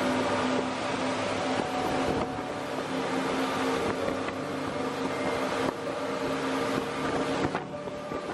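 Motorboat running at speed, its engine giving a steady hum under the rushing of the wake and spray churned up behind the stern.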